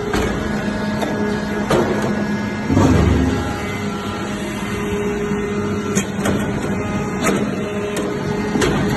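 Hydraulic metal chip baler running: a steady pump-motor hum with scattered sharp metallic clicks, and a heavier low thud about three seconds in.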